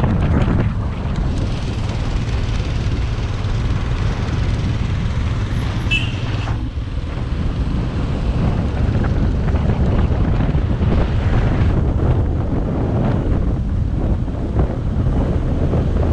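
Motorcycle running on the road, a steady low engine rumble under heavy wind noise buffeting the action-camera microphone.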